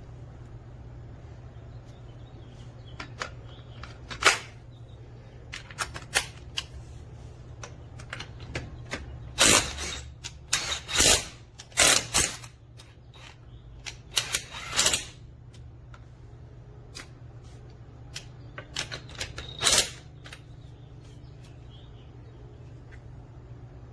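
Irregular sharp clicks and knocks, denser and louder in the middle, over a steady low hum.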